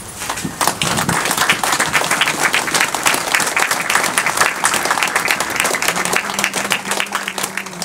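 A crowd clapping and applauding. It starts about half a second in, right after a sung poem ends.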